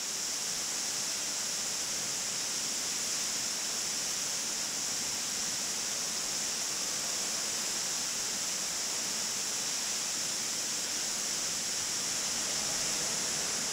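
Tall indoor waterfall plunging close by: a steady, even rush of falling water.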